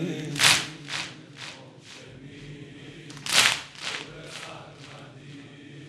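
Mourners beating their chests in unison (sineh zani) to the noheh's beat: two sharp slaps about three seconds apart, each followed by a fading echo.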